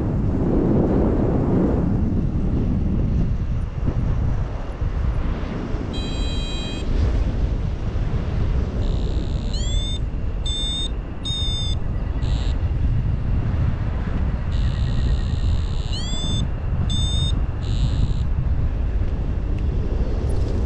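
Wind rushing over the microphone in paragliding flight, steady throughout. Two short runs of high-pitched beeping tones cut in around the middle.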